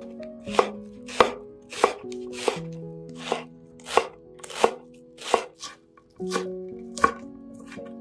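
A knife chopping food on a wooden cutting board in an even rhythm, about a dozen sharp strokes at roughly one and a half a second, stopping shortly before the end. Soft background music with held notes plays underneath.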